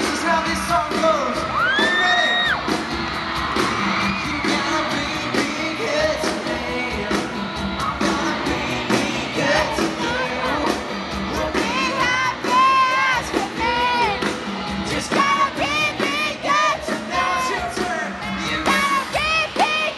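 A pop band playing live with a lead voice singing, recorded from inside an arena crowd. Fans scream over it in high-pitched shrieks: one long held scream about two seconds in, then many short ones from about twelve seconds in.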